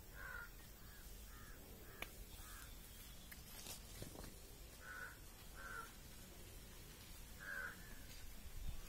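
Crows cawing, faint: a quick run of about five short caws, then three more spread over the following seconds.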